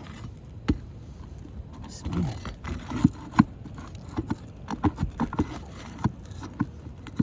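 Scattered short clicks, knocks and scrapes of a hand tool prying at roofing nails under asphalt shingles, during a test of whether the shingles can be lifted and repaired without damage.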